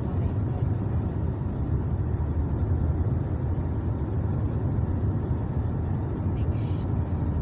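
Steady low road and engine noise inside the cabin of a moving Mazda car.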